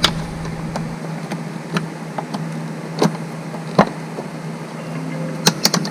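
Scattered sharp plastic clicks and taps from a tail-light bulb socket being handled and pushed into the housing, with a quick run of several clicks near the end, over a steady low hum.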